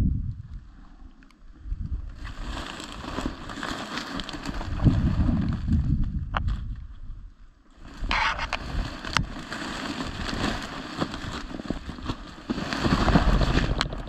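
Footsteps pushing through dense dry cattails and marsh grass: stalks crunching and swishing against legs and clothing in uneven waves, with a few sharp snaps of breaking stems.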